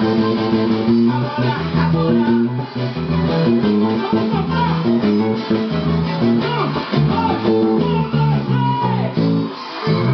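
Electric bass played with the fingers through a combo bass amp, a steady rhythmic bass line of short plucked notes.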